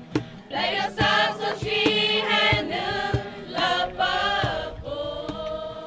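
Background music: voices singing together in a choir-like chorus over held tones and a regular beat, fading out near the end.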